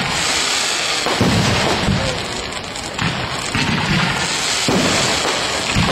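Aerial fireworks shells bursting overhead: a series of sudden booms about a second or so apart, with crackling in between.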